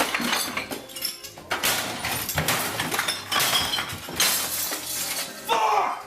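Irregular clinking and clattering of hard parts being handled and knocked together.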